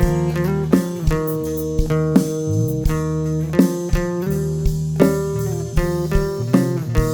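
Live band playing a Thai phleng phuea chiwit song's instrumental passage, without vocals: guitar picking out notes over a bass guitar line.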